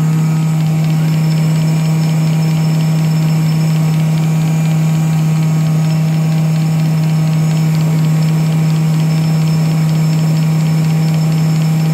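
Sun distributor tester running steadily, its motor spinning a 1967 Oldsmobile 4-4-2 distributor with the tester's vacuum pump on: a loud, unchanging low hum.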